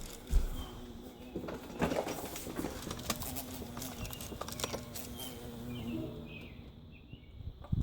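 Bumblebee buzzing with a steady low hum that fades away about six seconds in. Several sharp clicks and knocks come over it.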